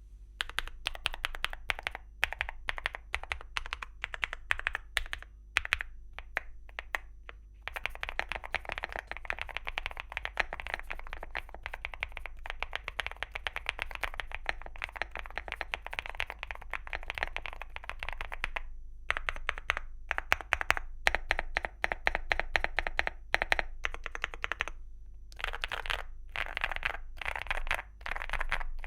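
Typing on an Evoworks Evo75 mechanical keyboard with KeyGeek Rye linear switches and Cherry-profile PBT keycaps. The first few seconds are slower, separate keystrokes, then fast continuous typing starts about eight seconds in, with short breaks near the middle and later on.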